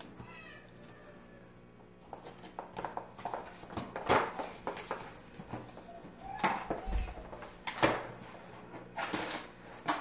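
Cardboard packaging being handled as a large shipping box is unpacked: inserts and flaps scraping, rustling and knocking against each other, with a few sharper knocks and a dull thump about seven seconds in.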